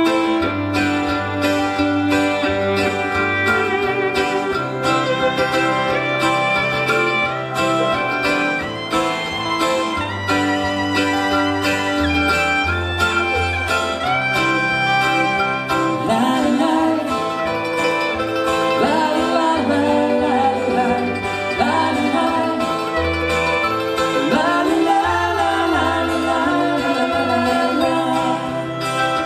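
Live acoustic band music: two steel-string acoustic guitars strumming with violin and mandolin over a bass line. Past the middle, a sliding melody with vibrato comes to the fore.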